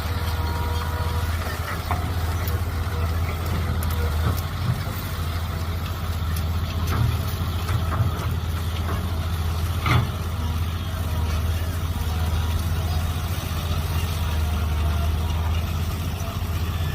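Mini excavator engine running steadily under load while digging, with a few short knocks and clanks from the working machine, the loudest about ten seconds in.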